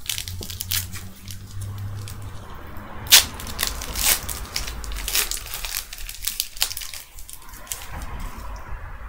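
A foil trading-card pack being torn open and its wrapper crinkled and crumpled, with a run of sharp crackles, the loudest a little after three seconds in.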